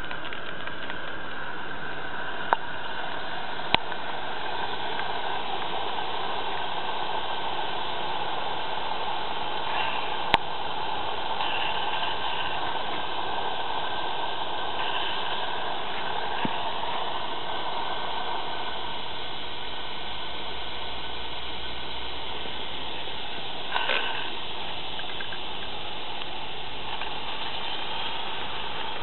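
Roundhouse Billy live-steam model locomotive hissing steadily as it runs and vents steam, with a few sharp clicks early on and a brief louder burst about three-quarters of the way in.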